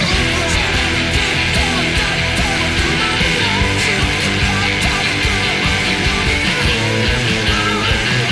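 Heavily distorted electric guitar, a Fender on its rear pickup through a high-gain amp-simulator preset, playing a fast rock part over a full band track with drums.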